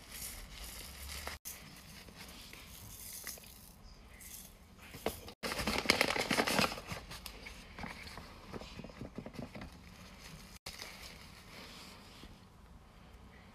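Paper and wrapping rustling and crinkling as hands open paper blind bags and unwrap the items inside, loudest about halfway through while a hand rummages in a paper bag. The sound breaks off briefly three times.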